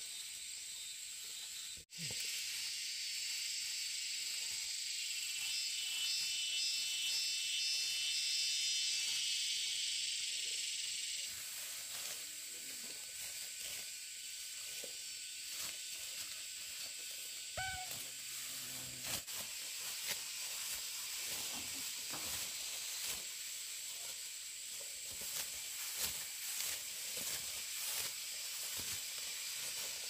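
Steady high-pitched insect chorus, with a pulsed, repeating chirping song over it for several seconds a few seconds in. In the second half there are scattered rustling, crackling clicks.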